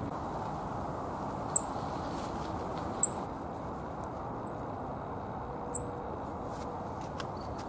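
Black-faced bunting giving three short, high call notes, a second or two apart, over a steady low background rumble.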